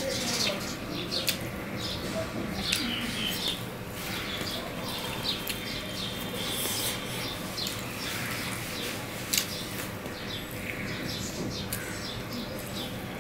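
Eating by hand: fingers mixing rice and curry on a steel plate, and chewing, with scattered short sharp clicks.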